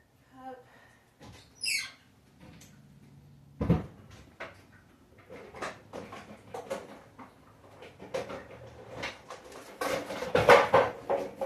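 Household handling sounds: scattered knocks and clatter of things being moved and set down, with a short high squeak about two seconds in and a busier burst of clatter near the end.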